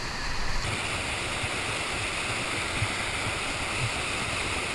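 Whitewater of a steep rocky river rapid rushing and pouring steadily over a drop. The rush turns abruptly brighter a little under a second in.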